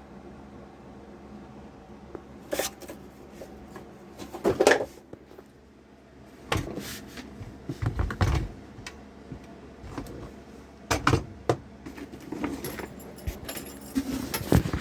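Tool boxes and packaging handled during an unboxing: irregular knocks, clunks and rattles, a few at a time with short gaps between.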